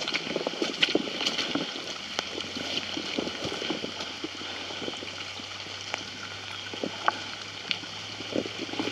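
Rain-swollen creek flowing, a steady wash of water, with scattered light knocks and clatters throughout. A low steady hum comes in about two and a half seconds in.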